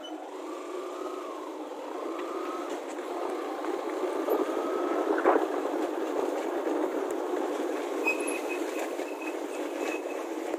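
A vehicle driving along a rough lane: engine running with steady road rumble, a whine rising in pitch over the first few seconds, and a sharp knock about halfway through.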